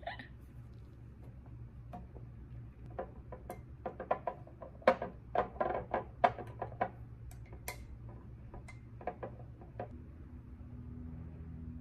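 Flat glass beads clicking and clinking against a glass jar and a glass tabletop as they are picked up and pressed into place on the jar; a quick, irregular run of sharp clicks, thickest around the middle.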